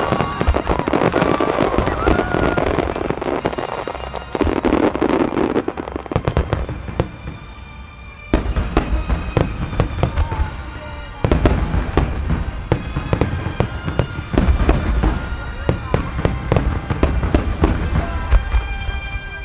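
Large aerial firework shells bursting in dense barrages, a rapid run of deep booms and crackle, with a lull about seven seconds in before a fresh barrage breaks out.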